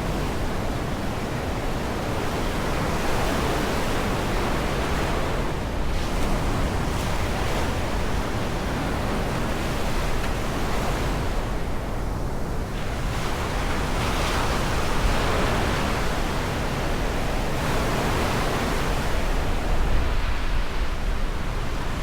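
Black Sea surf breaking on the shore, the noise swelling and easing every few seconds, with wind rumbling on the microphone.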